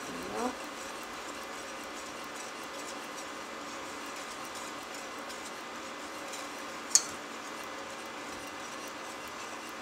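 Wire whisk stirring a thin milk-and-cocoa mixture in a stainless steel saucepan on an induction hob, over the hob's steady hum. A short rising sound near the start, and one sharp tap of the whisk against the pan about seven seconds in.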